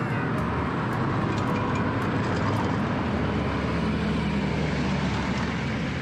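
Road traffic driving past: cars and a minivan going by, a steady rush of engine and tyre noise.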